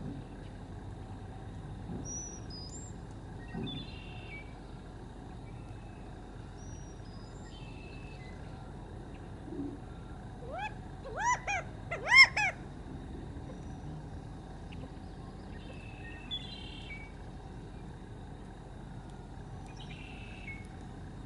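California quail calling: a quick run of about five short, loud notes, each rising and falling in pitch, about halfway through. Faint high chirps from other birds come and go over low steady background noise.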